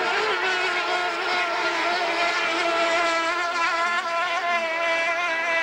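Racing powerboat's engine running flat out at speed: a steady, high engine note whose pitch wavers only slightly.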